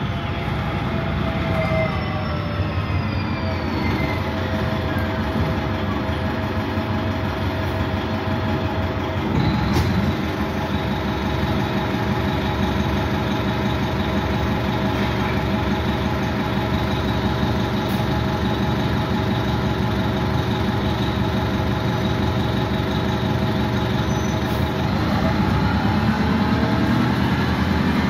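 1989 Gillig Phantom bus under way, heard from inside the cabin: its Detroit Diesel Series 50 engine and Voith D863.2 transmission drone with a whine. The whine falls in pitch over the first few seconds, holds steady, then rises again near the end as the bus picks up speed, with one brief knock about ten seconds in.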